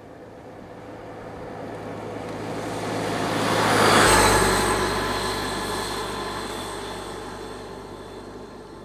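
Suzuki Burgman 650 maxi-scooter passing by at road speed. Its engine and tyre noise rises steadily as it approaches, is loudest about four seconds in, then fades as it rides away.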